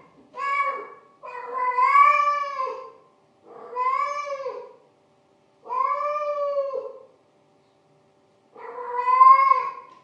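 Domestic cat's yowling mating call: five drawn-out yowls with short pauses between them, each rising and then falling in pitch, the first one short.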